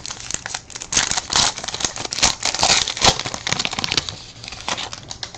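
A plastic trading-card pack wrapper crinkling and tearing, with irregular rustling and crackling as it is ripped open and handled.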